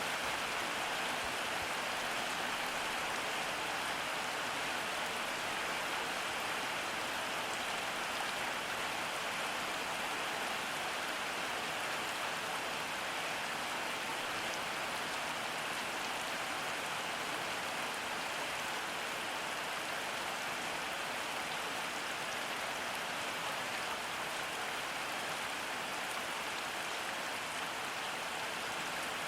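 Steady rain falling, with a dense patter of drops on surfaces.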